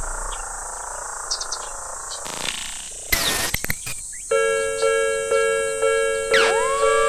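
Japanese level-crossing warning bell ringing its 'kan-kan' about twice a second, starting suddenly a little past halfway; near the end a tone glides up in pitch over the ringing. Before the bell there is only a faint hiss with a few clicks.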